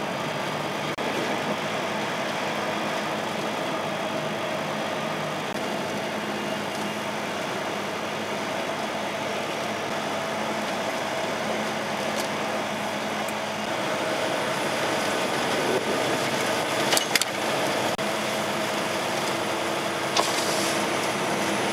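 Volvo truck's diesel engine running steadily under way, with road and tyre noise, heard from inside the cab. A few sharp knocks come about three-quarters of the way through.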